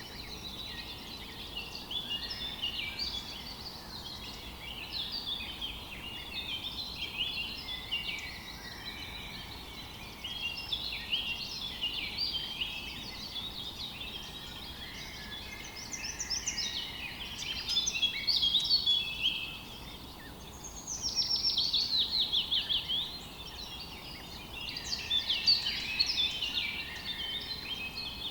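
Several songbirds chirping and singing at once in a dense, overlapping chorus, with a fast run of quick falling notes about three-quarters of the way through. A faint steady hiss lies underneath.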